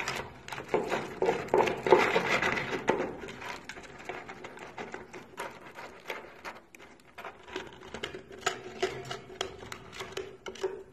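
Red squirrel scrabbling through a wooden feeder box full of sunflower seeds: a rapid, irregular clicking and rattling of seeds shifting under its paws, busiest in the first few seconds.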